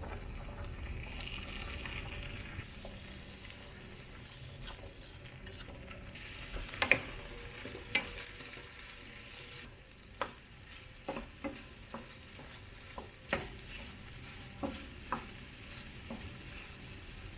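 Food frying in a pan: a steady sizzle while a utensil stirs it, knocking and scraping against the pan several times, more often in the second half.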